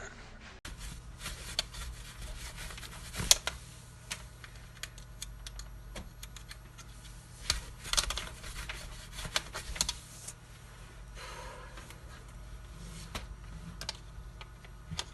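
Scattered light clicks and taps at irregular intervals over a steady low hum, with a few sharper knocks standing out.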